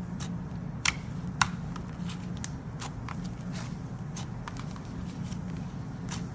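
Slime being handled and squeezed, giving irregular sticky clicks and pops, with two sharper pops about a second in, over a steady low hum.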